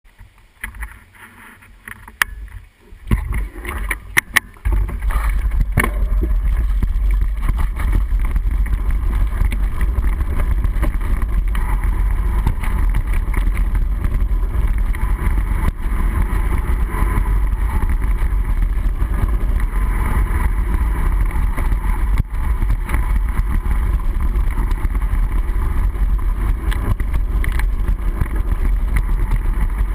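Mountain bike riding noise heard through a handlebar-mounted action camera's waterproof housing: a few sharp clicks and knocks in the first few seconds, then from about five seconds in a steady, muffled low rumble of wind and trail vibration as the bike rolls along.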